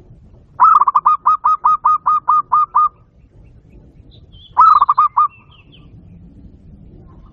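Zebra dove (perkutut) song: a rapid run of about a dozen clipped, evenly spaced coos, about five a second, over two seconds. A shorter burst of about five coos follows about two seconds later.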